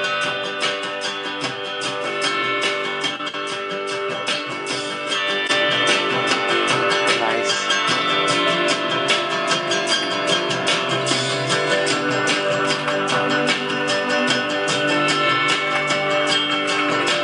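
Guitar-led instrumental music with a steady beat.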